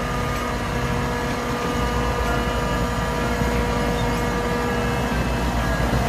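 Heavy multi-axle tipper truck's diesel engine running steadily, with an even rumble and a steady drone, as the hydraulic tipper body is raised to dump a load of soil.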